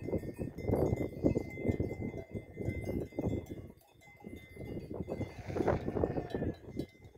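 Wind buffeting the microphone in gusts over a grazing flock of sheep and goats, with a bell ringing steadily.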